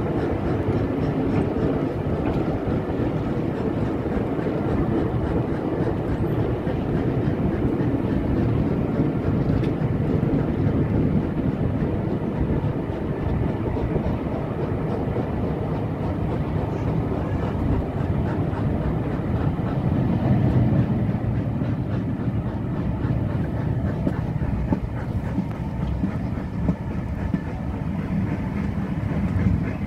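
Passenger carriages of a steam-hauled train running along the track, heard from a carriage window: a steady rumble of wheels on rail.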